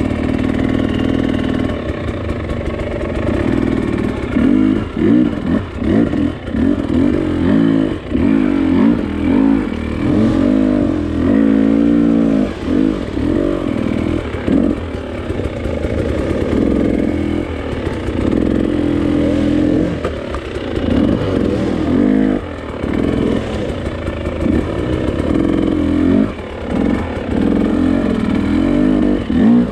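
Husqvarna TX300i two-stroke fuel-injected dirt bike engine being ridden hard in short throttle bursts. Its pitch climbs and drops over and over with brief lulls between.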